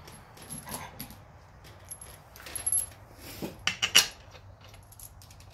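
Loose steel bolts clinking and jingling as they are gathered by hand and set into an engine's crankcase cover: scattered metallic clicks, loudest about four seconds in.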